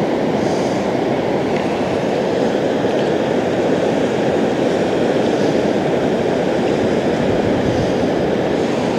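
A steady, loud rushing roar, mostly low in pitch, that runs on without a break.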